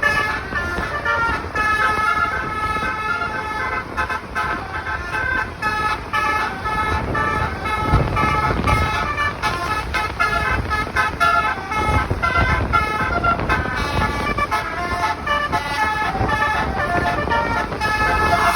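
Basuri multi-trumpet bus horn playing a melody of short, quickly changing notes, over the low rumble of the vehicle.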